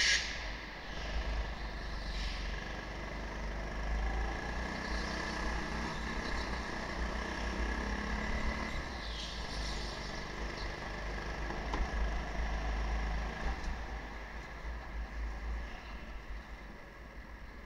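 Go-kart engine running as the kart laps the track, heard from on board over a heavy low rumble, with a few short higher hisses; it gets quieter over the last few seconds.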